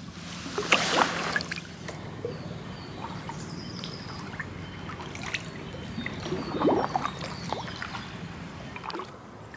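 Canoe paddle strokes beside a wooden canoe: the blade swishes through calm water and water trickles and drips off it, with two louder splashing strokes, about a second in and near seven seconds, and small drips between them.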